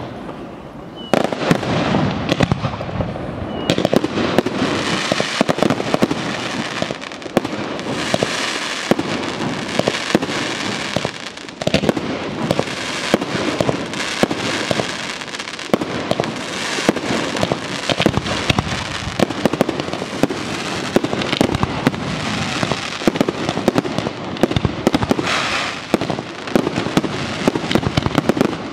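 Fireworks display, with aerial shells bursting in a dense, near-continuous run of bangs and crackles. It starts after a short lull about a second in.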